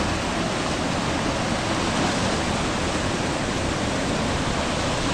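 Fast, turbulent muddy water churning along a concrete channel: a steady rushing.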